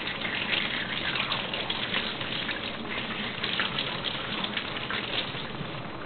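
Tap water running and splashing over a metal sink strainer basket that is being rinsed and scrubbed by hand, a steady rush with irregular splashes.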